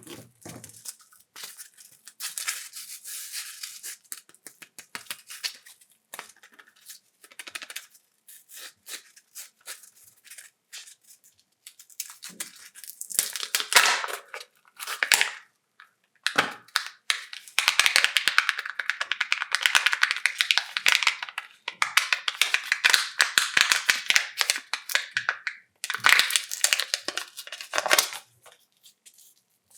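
Chocolate-egg wrappers torn open and crinkled by hand, in bursts of tearing and rustling mixed with many small clicks. The longest stretches of rustling come past the middle.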